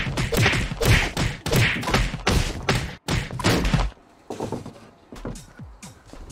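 Loud footsteps thudding quickly down wooden stairs, about three or four steps a second, ending about four seconds in, followed by a few softer thuds.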